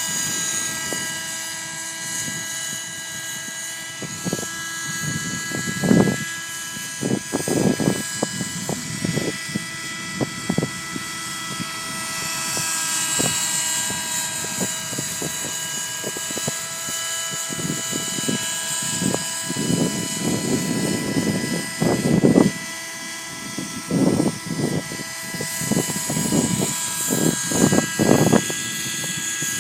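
Thunder Tiger Raptor 30 V2 nitro model helicopter running with a steady high whine from its glow engine and rotors. Irregular gusts of wind buffet the microphone, loudest about six seconds in and again around the twentieth to twenty-eighth seconds.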